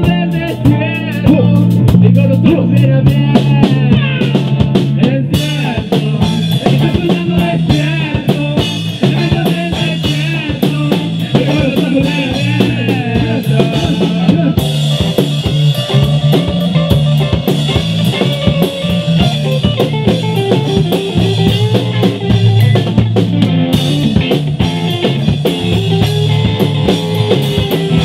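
Live rock band playing an instrumental passage: drum kit keeping a steady beat, with electric guitar and bass guitar.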